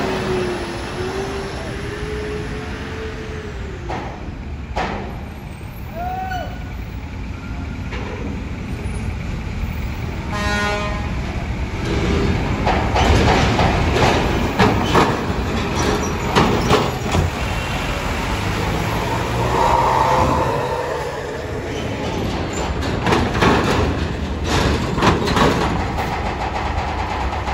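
Vehicles driving off a ferry's ramp: a tour bus and then a truck running slowly, with repeated clanking and rattling as their wheels roll over the steel ramp plates and grating. A short horn toot sounds about ten seconds in.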